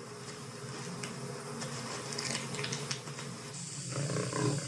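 Faint wildlife soundscape with low animal sounds. A steady high hiss comes in about three and a half seconds in, and a faint animal call starts near the end.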